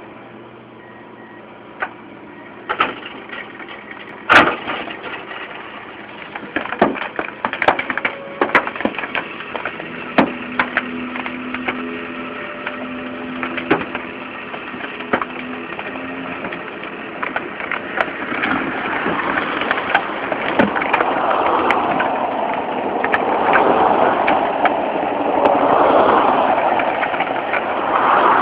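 A long string of sharp cracks and snaps, the loudest about four seconds in, then a louder rough, wavering noise that builds over the last ten seconds.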